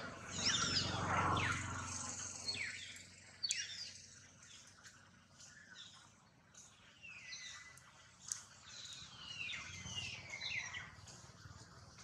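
Many short, high-pitched chirping calls, each falling in pitch, repeated at irregular intervals, with a low rumble in the first two seconds.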